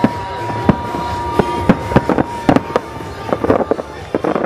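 Aerial firework shells going off in an irregular string of sharp reports, crowding together into a quick barrage near the end. A steady high tone holds under the first three seconds.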